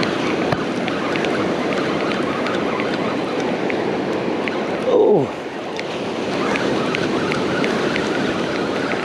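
Ocean surf washing steadily onto the beach, with wind on the microphone. About five seconds in, one brief, loud sound slides down in pitch.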